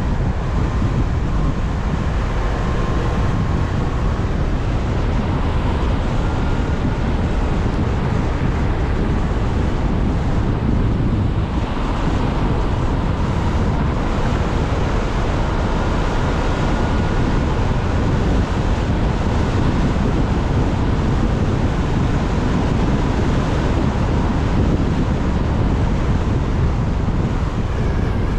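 Wind buffeting the microphone over steady road noise while riding a CSC City Slicker 3.2 kW electric motorbike at speed; a faint high whine comes and goes.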